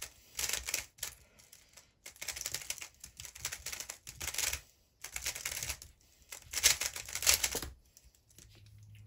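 QiYi Valk 3 Elite M magnetic 3x3 speedcube being turned fast in a solve, set up with clear magnets and red springs: quick runs of plastic clicking and clacking in about six bursts with short pauses between them.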